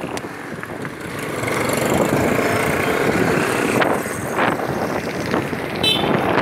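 Motorcycle ride through town traffic: wind rushing over the microphone along with the bike running and the traffic around it. A short high tone sounds just before the end.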